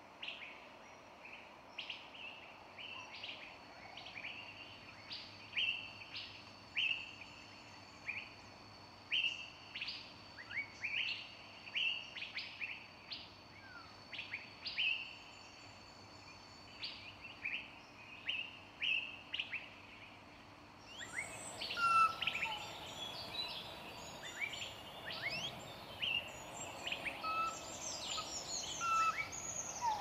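Small birds chirping, short high notes repeated every second or so. About two-thirds of the way through, the sound changes suddenly to a busier chorus of varied chirps and whistles.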